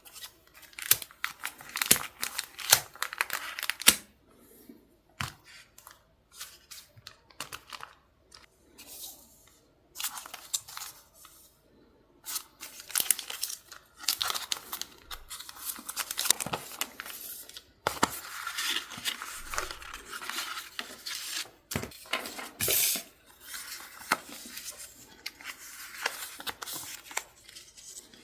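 Paper packaging and stationery being handled and torn open close up: irregular rustling, crinkling and tearing, sparser and quieter from about four to twelve seconds in.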